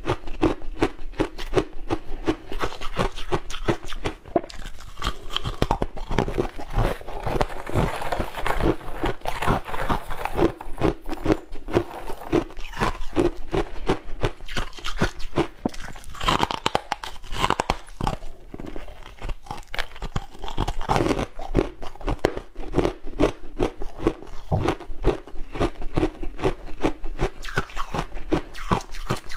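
Biting and chewing refrozen shaved ice close to a clip-on microphone: a dense, continuous run of sharp crunches and crackles.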